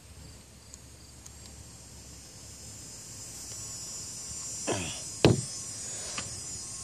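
Quiet outdoor background with a faint steady high insect chorus, then two sharp knocks close together about five seconds in from hands handling the plastic deck hatch and screws on the kayak.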